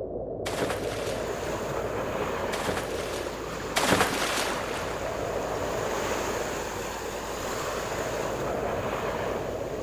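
Waves and open water with wind buffeting the microphone, a steady rushing noise with a brief louder gust or splash about four seconds in.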